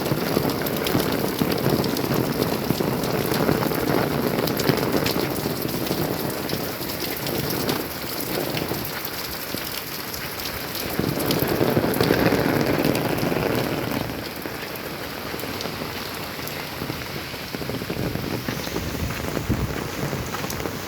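Steady rain falling, with many individual drops ticking. A deeper rushing noise swells up twice, once over the first several seconds and again near the middle.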